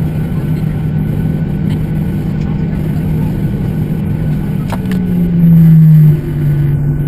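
Boeing 737-800's CFM56 turbofan engines heard inside the cabin from an over-wing window seat: a steady hum with a low drone as the airliner rolls along the runway after landing. Near the end it swells louder for about a second, then the drone settles a little lower in pitch.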